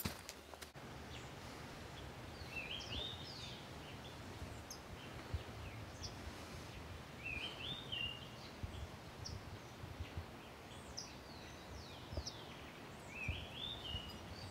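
A songbird singing the same short rising, stepped phrase three times, about five seconds apart, with a few faint chirps between, over a steady low outdoor background rumble.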